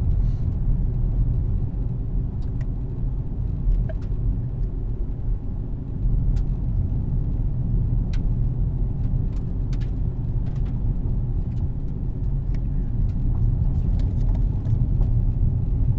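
Car running, heard from inside the cabin: a steady low rumble of engine and road noise, with scattered faint ticks.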